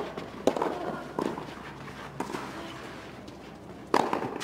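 Tennis rackets striking the ball in a doubles rally on clay: four sharp pops about a second apart, the last near the end the loudest.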